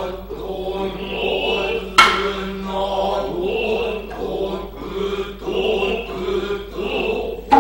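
Noh music: male voices chanting in long held, wavering tones, with high wavering flute notes above them and two sharp drum strikes, about two seconds in and near the end.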